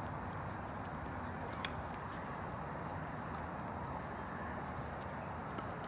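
Steady background noise with a few faint knocks and one sharper knock about a second and a half in, the sound of a tennis ball being hit and bouncing on court.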